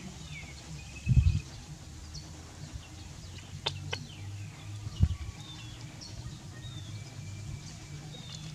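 Birds chirping and whistling with many short, high calls, some falling in pitch. Two dull thumps, about a second in and about five seconds in, are the loudest sounds, with a couple of sharp clicks in between.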